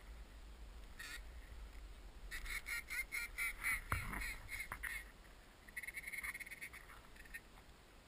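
Duck quacking in two runs of rapid, evenly repeated calls, about five a second, the first starting about two seconds in and the second around six seconds. A short falling sound comes about four seconds in.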